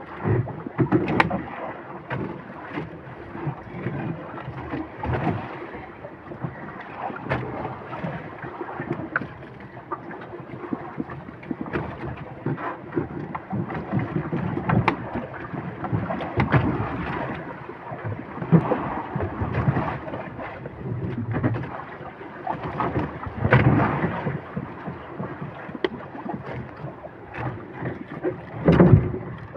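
Wind rumbling on the microphone and sea noise aboard a small fishing boat, swelling and easing unevenly, with scattered knocks.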